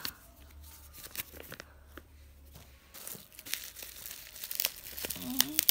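Bubble wrap being crinkled and pulled open by hand, in scattered small crackles that grow busier about halfway through.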